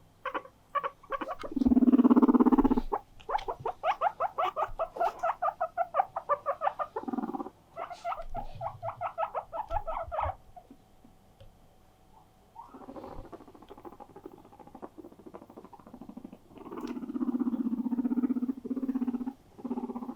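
Guinea pig wheeking: loud, rapid trains of short high squealing calls at about five a second, the attention-seeking call a guinea pig makes to demand company or play. A louder, lower sound breaks in about two seconds in and again near the end, and the calls fade after about ten seconds.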